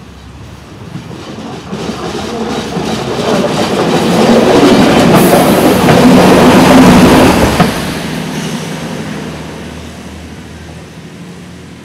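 Uerdingen VT 98 diesel railbus approaching, passing close by and pulling away. Its engine and wheels on the rails grow louder, are loudest for about four seconds, drop off sharply as it goes past, and then fade.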